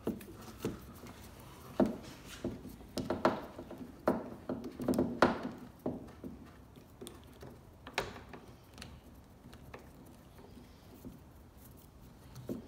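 Irregular clicks and light knocks as a screwdriver backs out the retaining screw of a car's exterior door handle and the plastic handle is worked loose from the door, busiest in the first eight seconds and sparser after.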